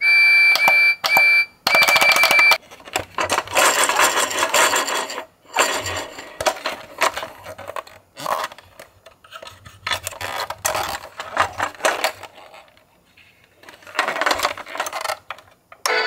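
Battery-operated toy Percy tank engine's electronic sound effects after its boiler button is pressed: a high beeping tone repeated about four times, then several bursts of hissing noise.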